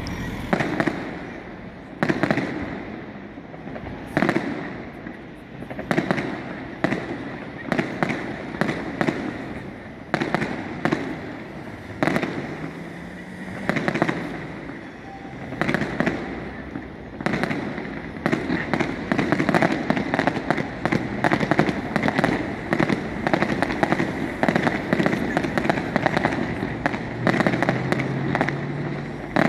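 Fireworks display: aerial shells bursting with sharp bangs every second or two, thickening about two-thirds of the way through into a dense, almost continuous run of bangs and crackle.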